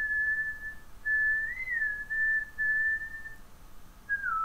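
Slow whistling in long held notes near one pitch, broken once and bending briefly upward. After a pause, a new note drops lower and holds near the end.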